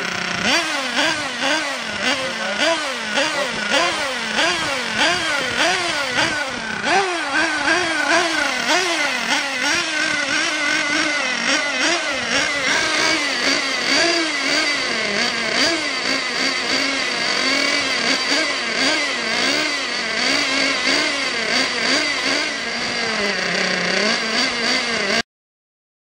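Nitro RC car's small two-stroke glow-fuel engine running, revved up and down over and over by blips of the throttle. A steady high whine joins about halfway through, and the sound cuts out to silence near the end.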